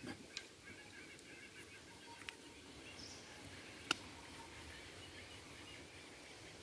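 Quiet outdoor ambience with faint bird calls and a few soft clicks; one sharper click comes about four seconds in.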